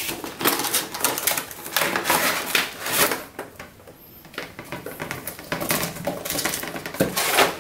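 Cardboard box and clear plastic packaging tray being opened and handled: a run of rustles, scrapes and sharp clicks, quieter for a moment about halfway through.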